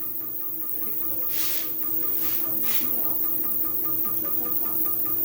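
Cutera CoolGlide laser system running: a steady electrical hum under a rapid, even beeping, with two short hisses about one and a half and two and a half seconds in.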